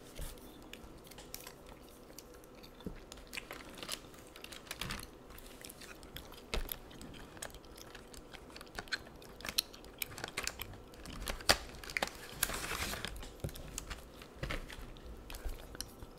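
Close-miked gum chewing with scattered sharp clicks, mixed with pens clicking and rattling in a clear plastic pen case being handled.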